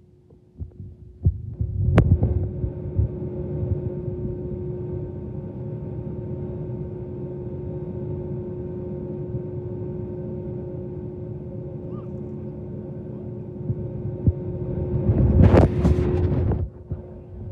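Steady cabin hum of an Airbus A320-family airliner with its jet engines idling while it holds before takeoff, with a droning tone and low rumble. A louder rumble comes about two seconds in, and a louder rushing swell comes near the end before the sound drops back.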